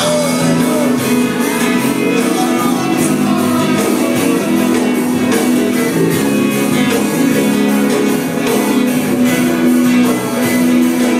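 Live worship band playing an instrumental passage, with strummed guitar chords over a steady beat.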